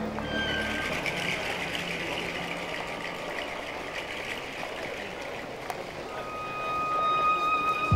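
Steady rushing noise of a subway station, swelling near the end as a train pulls in.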